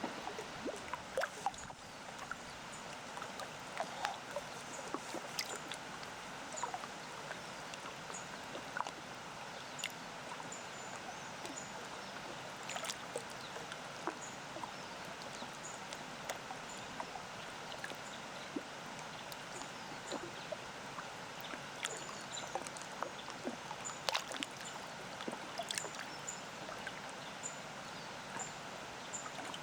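Small waves lapping at a lakeshore: a steady wash broken by frequent little splashes and drips, over the faint steady rush of a distant waterfall. Short high bird chirps come now and then.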